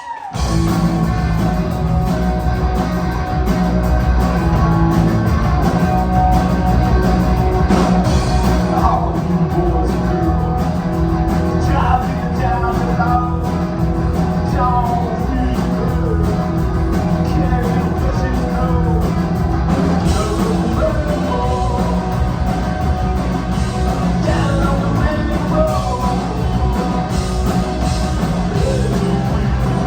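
Rock song with singing and guitar, starting abruptly and playing continuously at a loud, even level.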